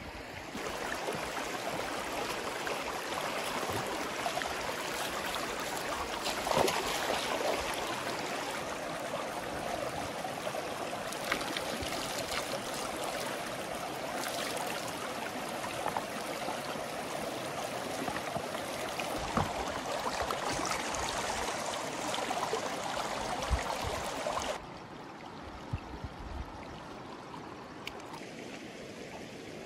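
River water flowing steadily. About 25 seconds in it drops suddenly to a quieter flow, with a few light knocks here and there.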